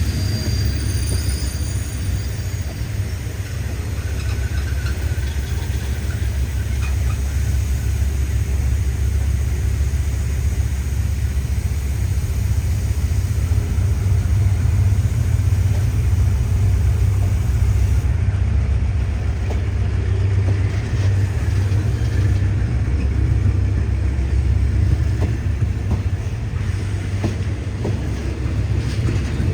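A train running close by with a steady low rumble.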